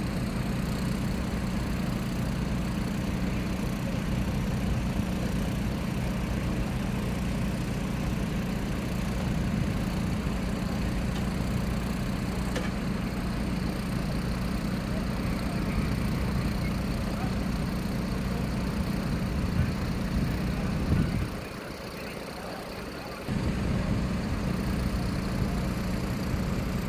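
Diesel engines of parked fire engines idling with a steady low hum. Near the end the low hum cuts out for about two seconds, then comes back.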